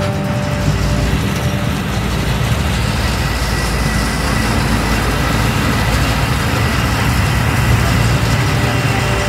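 Steady low rumble of a moving motor vehicle, running evenly without breaks.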